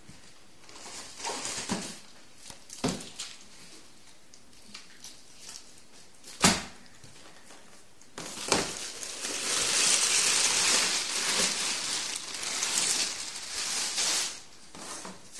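TV packaging being handled: a few sharp knocks, then several seconds of loud rustling and crinkling, like plastic wrap or foam being pulled off.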